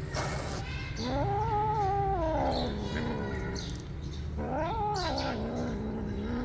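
Domestic cat crouched over its food, giving two drawn-out warning yowls: a long one about a second in and a shorter one past the middle, each rising and then falling in pitch. It is guarding its meal against anyone coming close.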